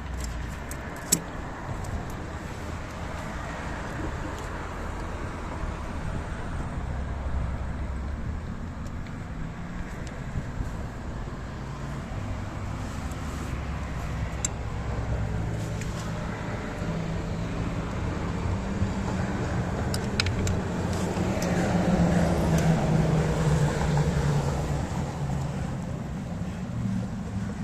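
Low rumble of motor traffic, swelling about 22 seconds in, with a few light clicks.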